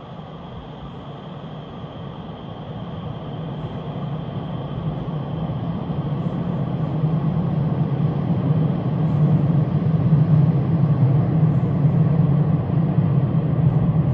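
Taiwan Railway EMU3000 electric multiple-unit train running through a station, a steady rumble growing louder over the first ten seconds or so and then holding at its loudest.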